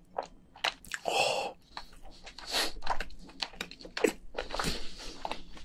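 Close-miked chewing of cooked crayfish meat: a string of short, wet mouth clicks and smacks.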